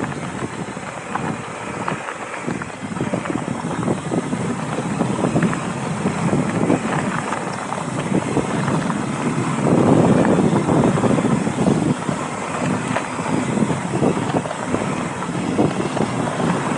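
Mountain bike riding down a rough singletrack trail: wind rushes on the microphone while the bike rattles and knocks over bumps and rocks. It gets louder about ten seconds in.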